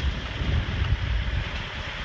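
Noise of a moving truck, heard from on board, with wind buffeting the microphone and making an uneven low rumble.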